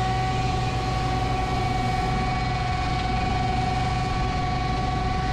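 Concrete mixer truck's diesel engine running steadily at idle, with the hiss of a water hose spraying up onto the hopper to rinse it after loading. A steady high whine sits over the engine hum.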